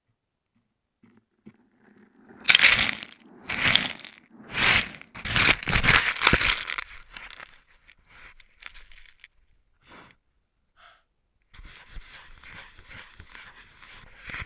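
Close-up noise right on a camera's microphone: about five loud rushing bursts roughly a second apart, then a quieter rustling near the end.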